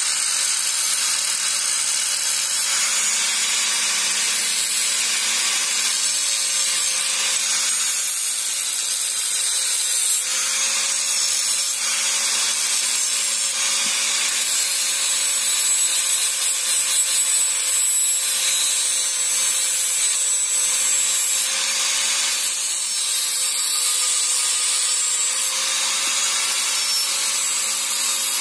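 Small electric angle grinder with a cutting disc running and cutting into a metal piece: a steady high-pitched grinding hiss over the motor's whine, which wavers slightly as the disc bites.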